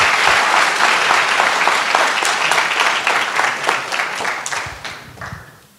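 Audience applauding, the clapping thinning out about four seconds in and dying away near the end.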